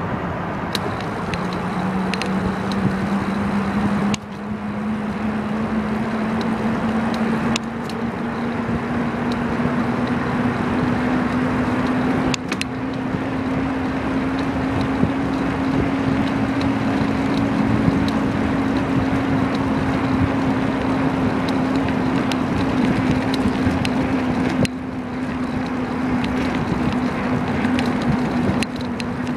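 Riding noise of a bicycle on a road: wind rushing over the microphone and tyre rumble, with a steady hum that slowly rises in pitch over the first half and then holds. A few sharp clicks, and the rushing noise drops suddenly several times.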